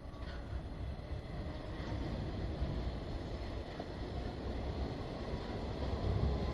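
Train approaching on the line, a low rumble growing steadily louder.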